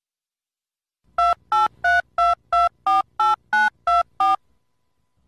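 Telephone keypad (DTMF) tones: ten short two-note beeps, about three a second, as a number is dialled.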